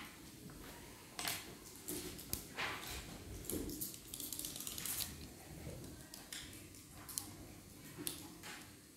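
Irregular light scratches and small clicks from pencils writing on paper worksheets and fingers moving abacus beads, a few sounds a second apart, over a faint steady room hum.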